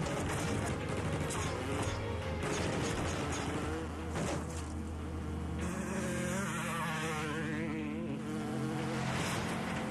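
Motorcycle engine buzzing and rising and falling in pitch as it runs alongside a car, with a few sharp rifle shots in the first half.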